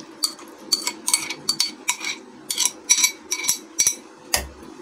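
Metal spoon scraping and clinking against a glass bowl as soaked sago pearls are pushed out into a steel mixer-grinder jar: a quick run of clicks and scrapes, about three a second. A dull thump near the end.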